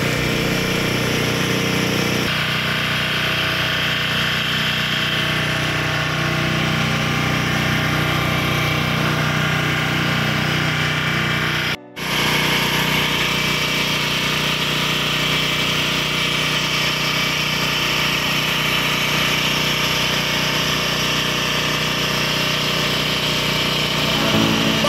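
Portable generator engine running steadily at a constant speed, with one brief dropout about twelve seconds in.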